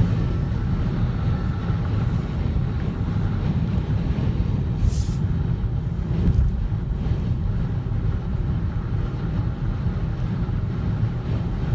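Strong wind buffeting the microphone: a steady low rumble that rises and falls, with a short hiss about five seconds in.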